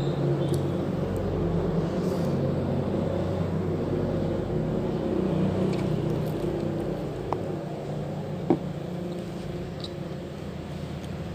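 An engine running steadily with a low, even hum, easing a little past the middle, with a couple of small clicks about seven and eight seconds in.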